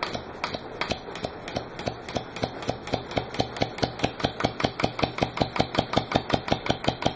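Two-stroke weed-eater engine converted to run on compressed air, running with a sharp click and puff on every turn as the solenoid valve admits air. The beats quicken steadily, from about two to about six a second, as the engine picks up speed.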